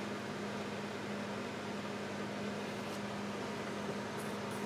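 Steady low hum with an even hiss, with a couple of very faint ticks in the second half.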